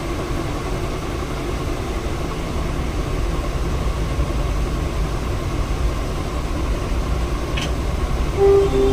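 Steady low background rumble with a faint hum. A brief click about seven and a half seconds in, and a steady tone begins near the end.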